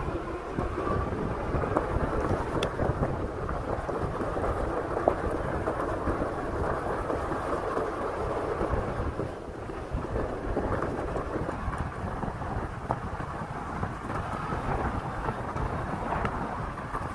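Wind noise on the microphone and fat tyres rolling over loose sand and gravel as an e-bike rides downhill: a steady, noisy rumble with scattered small crackles.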